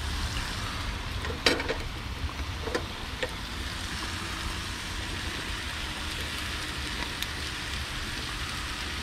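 Sausages, onions and ham sizzling on a grill pan over an outdoor grill, a steady hiss of frying. A few light clicks of metal tongs and spatula come through it, about one and a half seconds and three seconds in, and once more later.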